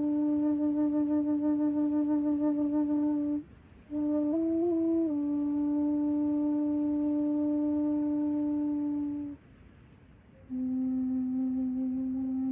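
Native American courting flute (bibigwan) playing slow, long held notes with a slight waver, stopping twice for a breath. A short ornamented phrase comes about four seconds in, and a lower held note near the end.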